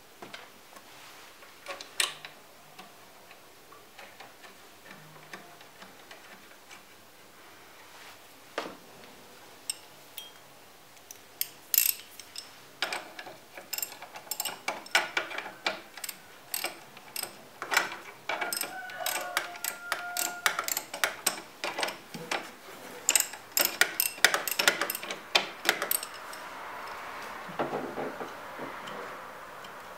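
Diesel fuel filter canister and its holder being handled and pushed into place under the bonnet: irregular sharp clicks and light knocks of plastic and metal, a few at first, then coming thick and fast through most of the second half.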